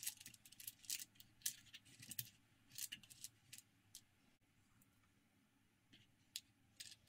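Faint clicks and light rattles of flies and their hooks being handled in a clear plastic compartment tackle box, tapping against the plastic. There is a quick flurry of clicks over the first four seconds, then a few single clicks near the end.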